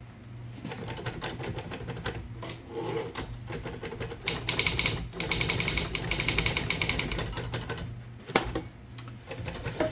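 Typewriter being typed on: scattered key strikes, then a fast, even run of keystrokes in the middle, over a steady low hum.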